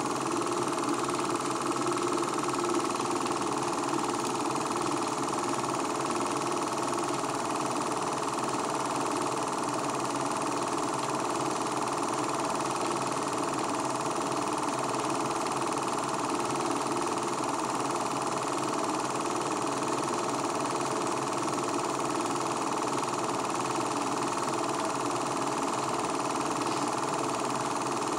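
Home-movie film projector running: a steady mechanical whir from its motor and film transport.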